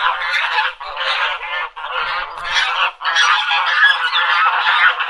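A flock of ducks quacking, many calls overlapping almost without a break.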